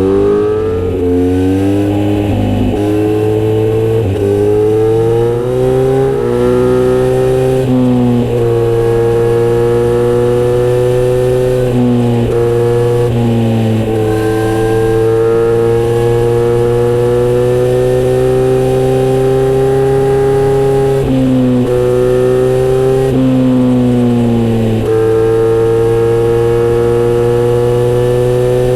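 Kawasaki GPZ900R inline-four running through a Misty Kintaro short-pipe muffler with a 70 mm silencer, under way: the exhaust note climbs and drops back through several upshifts in the first several seconds, then holds a steady cruising note with a few more shifts later on.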